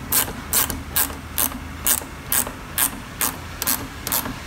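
10 mm ratchet ring spanner clicking in a steady rhythm, about two and a half strokes a second, as it does up a nut on a bolt held with an Allen key.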